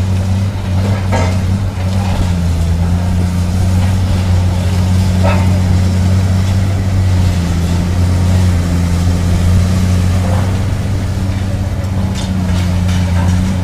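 Diesel engines of large Caterpillar tracked demolition excavators running with a steady deep hum, with a few brief clanks and crunches of debris along the way.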